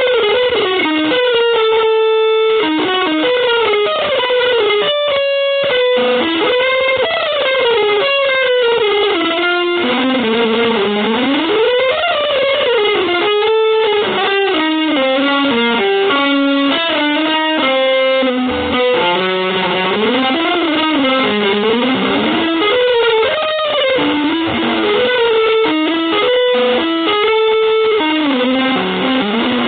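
Electric guitar playing fast, winding single-note lines that run up and down in pitch without a break, in an instrumental jazz or avant-garde style.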